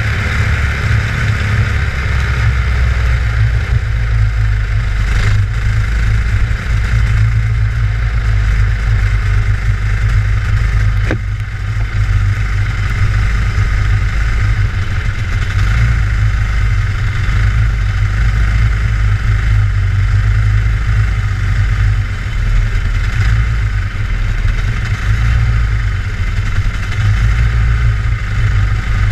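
Go-kart engine running at racing pace, heard on board the kart, fairly steady throughout the lap with no large revving swings. A single sharp knock about eleven seconds in.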